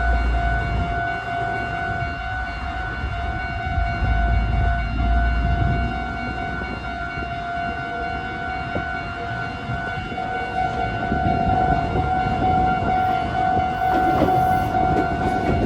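Train running: a low rumble under a steady held tone with overtones that lasts throughout, with clicking and rattling growing in the last few seconds.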